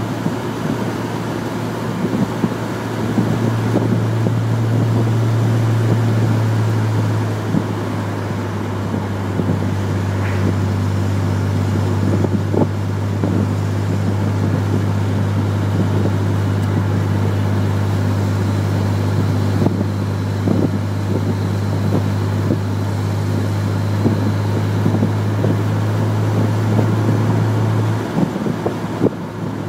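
Chevrolet Corvair's air-cooled flat-six engine running steadily at cruising speed, a constant low drone over wind and road noise; the engine note eases slightly about seven seconds in and drops a little near the end.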